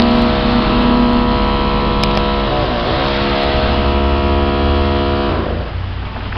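A vehicle's motor giving a steady pitched hum over a low drone, with traffic noise. The hum dips briefly near the middle and cuts out about two-thirds of the way through, leaving road noise.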